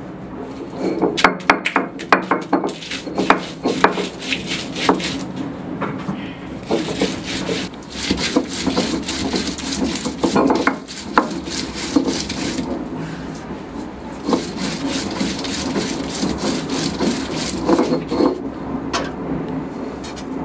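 Stone roller on a Kerala grinding stone (ammikkallu) crushing green chillies and garlic and grinding a coconut-spice paste. Rough stone-on-stone grating in repeated back-and-forth strokes, with sharper knocks in the first few seconds and denser, steadier grinding from about a third of the way in.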